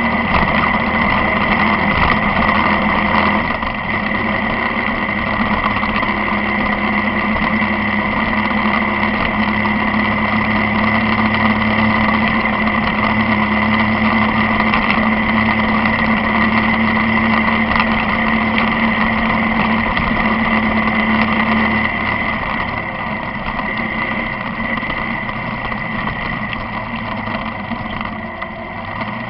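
A vehicle's engine running steadily with road noise, heard from onboard while driving along the highway. About three-quarters of the way through a low steady engine tone drops out and the sound gets slightly quieter.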